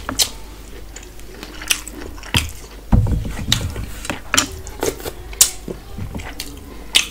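Close-up eating sounds: wet smacking and chewing of curry and rice, with fingers squishing and scraping food on a steel plate. There is a low thump about three seconds in.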